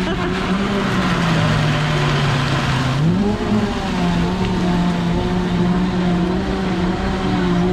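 Electric blender blending a fruit drink: a steady motor hum with a gritty grinding noise, then about three seconds in the motor pitch rises and the grinding drops away as it runs on smoothly.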